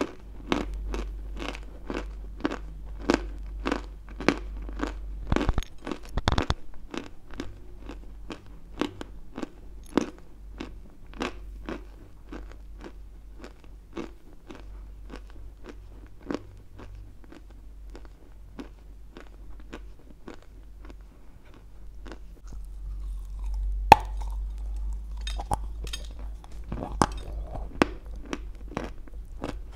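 Close-miked chewing of white Turkestan edible chalk, a steady run of crisp crunches at about two to three a second. The crunches grow softer and sparser after the first few seconds. A single sharp bite comes about 24 seconds in, and the crunching picks up again near the end.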